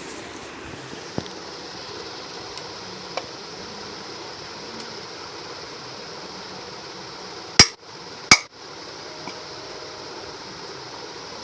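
Two sharp hammer blows about a second apart on a ceiling fan's lower bearing, knocking the jammed, noisy bearing out of the fan, with a few light taps before them.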